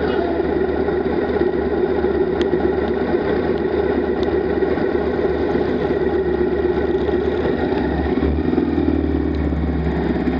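Motorcycle engine running steadily, heard up close from a camera mounted on the bike.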